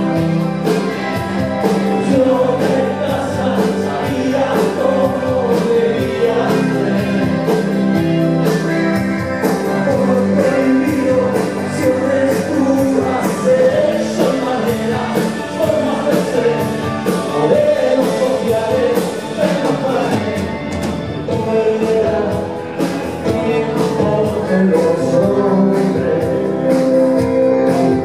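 Live rock band playing with a male lead singer, drums, guitars and bass going without a break.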